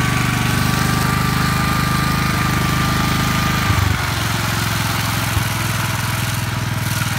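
Gravely Model L walk-behind tractor's single-cylinder engine running under load, with a steady high whine over it. About four seconds in the whine stops and the engine drops to a lighter, lower run, with a couple of short knocks.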